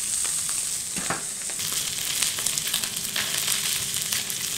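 Sockeye salmon fillets sizzling in hot oil in a stainless steel skillet, skin side down, with a steady hiss and fine crackling. A single light knock sounds about a second in.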